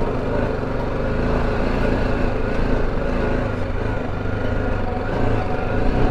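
Single-cylinder engine of a BMW G 310 GS motorcycle running steadily while riding over a rocky dirt track, heard through a handlebar-mounted camera with wind and road noise; cuts off suddenly at the end.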